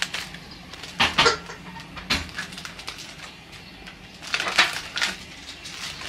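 A plastic bag of frozen gyoza being handled and opened by hand: a few short crinkles and light knocks, strongest about a second in and again after about four seconds.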